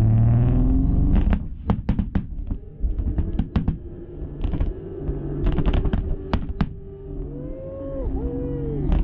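Nissan Skyline's engine held at high revs, then a rapid series of sharp exhaust pops and bangs for several seconds, with the steady rev coming back right at the end.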